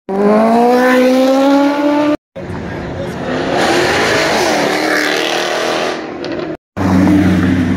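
Car engines accelerating away in short clips that cut off abruptly: first an engine revving up with steadily rising pitch, then a red Jaguar F-Type driving past, then another car's engine running at a steady pitch.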